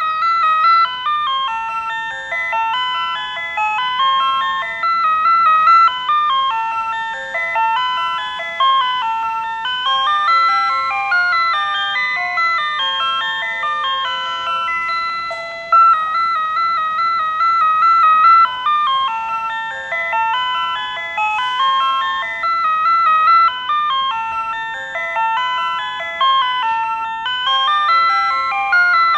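PATLITE electronic annunciator playing the Tobu Railway signal-clear tone, a looping electronic chime melody, recorded close to the unit. It tells the crew of a one-man train that the starting signal has cleared, and it keeps sounding as long as the signal shows clear.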